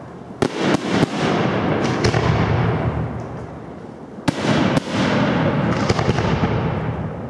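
Aerial firework shells bursting. A quick cluster of sharp bangs comes in the first second and two more follow around four to five seconds in, each trailing off in a long rolling echo.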